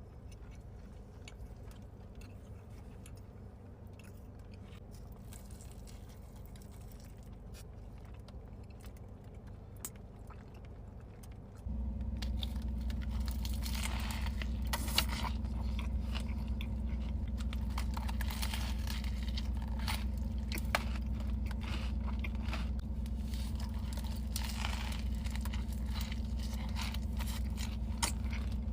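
Close-miked eating sounds: a person biting and chewing food, with crunching and many small wet clicks. Under it is a steady low hum that gets louder about twelve seconds in.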